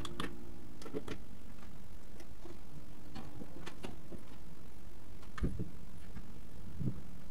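A steady background track with a ticking pulse, overlaid on a sped-up sequence, with scattered sharp clicks and knocks from plugs and cables being handled around an audio mixer.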